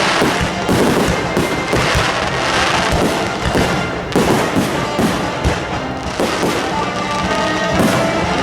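Neighbourhood fireworks going off in a dense, continuous series of bangs and crackles, with music playing underneath.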